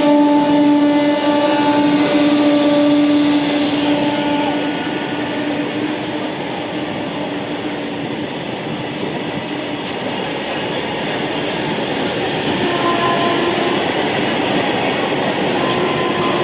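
Goods train passing: its horn sounds and fades out about three to four seconds in, then the steady rumble and rattle of the wagons going by.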